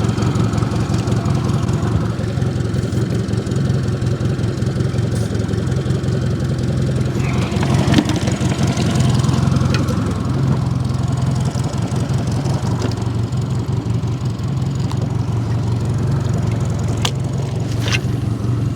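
Boat motor running steadily at low speed with a low, even hum, and a couple of light clicks near the end.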